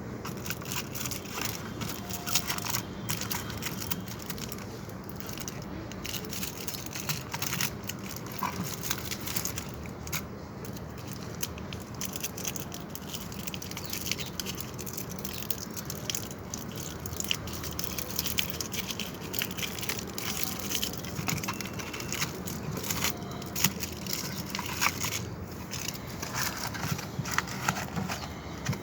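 Dense, irregular crackling and clicking over a low steady hum.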